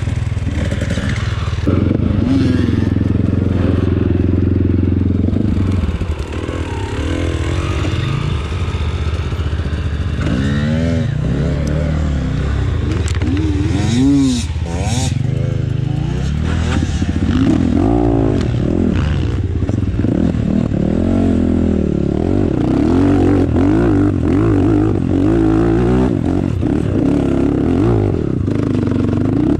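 Enduro dirt-bike engine revving up and down over and over, its pitch climbing and dropping every second or two as the throttle is worked off road.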